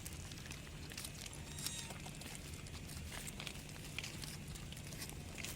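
Faint background ambience: a steady low hum with scattered small clicks and rustles, and no calls.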